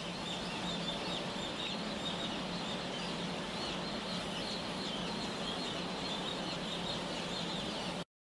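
Hundreds of newly hatched chicks peeping all at once in a dense, steady chorus of high chirps, over a steady low hum. It cuts off suddenly about eight seconds in.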